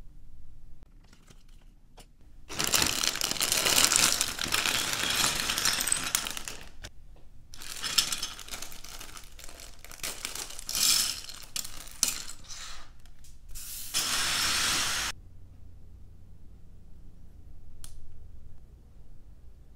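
Plastic bag of LEGO parts crinkling as it is torn open and handled, with small plastic bricks clattering onto a wooden tabletop, in three loud spells. Near the end, faint clicks of minifigure parts being pressed together.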